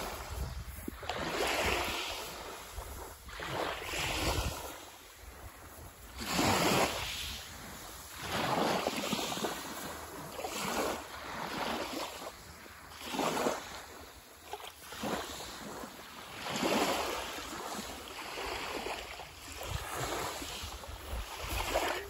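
Small sea waves lapping and washing up on a fine-shingle shore, one swell every two to three seconds, with light wind on the microphone.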